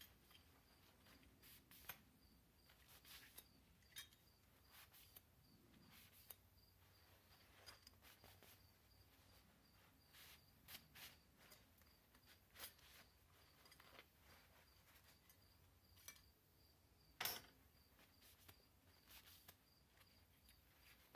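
Near silence: faint scattered clicks and light handling noises, one a little louder about 17 seconds in, over a faint, evenly pulsing high tone.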